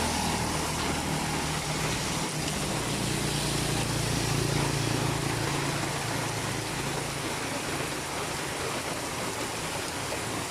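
A motor vehicle engine running steady and low, fading away over the last few seconds, over a constant hiss of rain.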